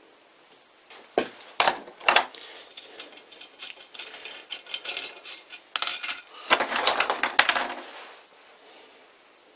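Steel hex bolt and washer being taken out of a threaded hole in a metal chuck backing plate and set down on the plate: three sharp metallic clinks, lighter ticking, then a burst of clattering and clinking about six seconds in.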